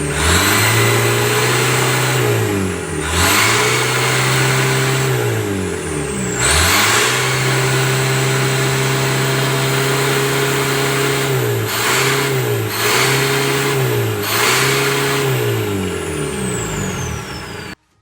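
Turbocharged Toyota 14B four-cylinder diesel engine revving under throttle. It holds a steady high pitch for a few seconds at a time, then dips briefly and comes back up, six or so times, with a faint high turbo whistle following the revs. The sound stops abruptly near the end.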